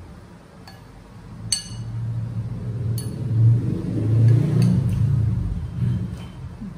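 A metal spoon clinks against a ceramic bowl a few times, sharpest about a second and a half in, over a low rumble that swells through the middle and fades near the end.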